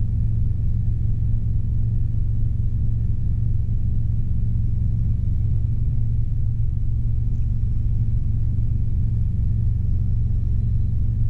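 Robinson R22 helicopter in flight, heard from inside the cabin: a steady, loud low drone of engine and rotors that does not change.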